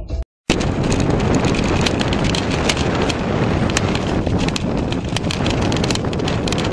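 Road and wind noise inside a moving car at speed, with wind buffeting the microphone and scattered sharp clicks. It starts after a brief dropout near the start.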